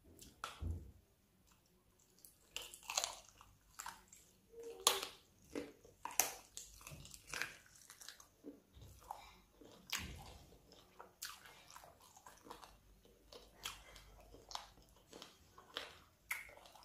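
A person biting and chewing sauce-covered chicken feet, making irregular wet crunches and small clicks as the bones and skin are chewed.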